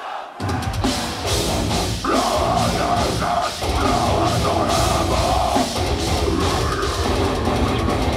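Deathcore band playing live: distorted guitars, drums and rapid kick drums come back in at full volume about half a second in after a brief break.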